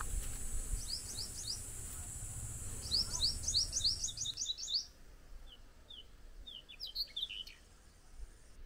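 Sunbird calling: short, high rising chirps, a brief burst of about five, then a fast run of about ten, then scattered single notes. A steady high insect hiss and a low wind rumble lie under the first half and cut off suddenly about halfway through.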